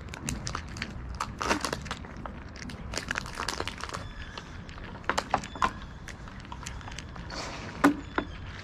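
Two cats crunching dry kibble: irregular sharp crunches and crackles in quick clusters, with one louder snap near the end.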